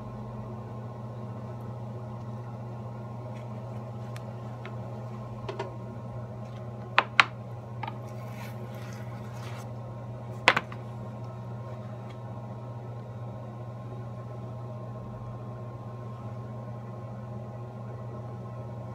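Steady low hum of an electric potter's wheel, broken by a few sharp knocks and clicks: two close together about seven seconds in and a loud one about ten and a half seconds in.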